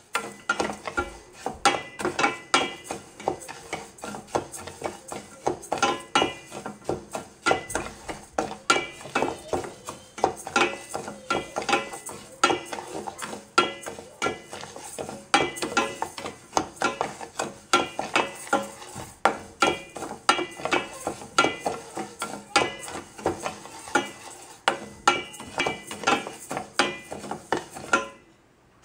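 A wooden spatula stirring raw rice as it dry-roasts in a stainless steel pan, with no oil: a steady run of scraping, rattling strokes, about one to two a second, that stop near the end.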